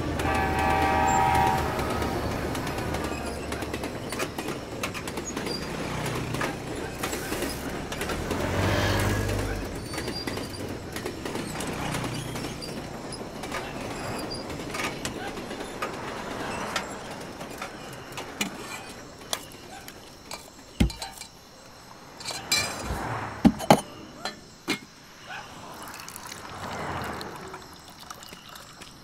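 Street traffic: a vehicle horn sounds briefly at the start, then vehicles pass with a low rumble that swells and fades several times. A cluster of sharp knocks and clinks comes in the second half.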